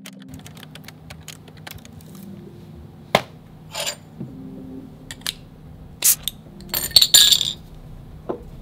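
Glass beer bottle and drinking glass clinking and knocking as they are handled and set down: a scattering of sharp clinks, the loudest about three seconds in, and a cluster about seven seconds in with a short hiss.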